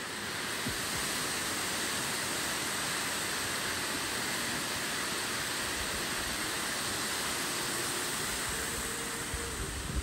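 Water spilling down a concrete dam face onto rocks in the pool below: a steady rushing that swells up about a second in and eases a little near the end.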